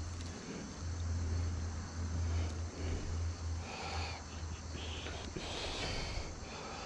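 Outdoor riverside ambience: an uneven low rumble that comes and goes, with a faint steady high drone of insects.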